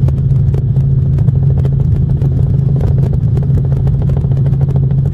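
Helicopter cabin noise: a steady, loud low drone from the rotor and engine with a rapid, even beat from the blades.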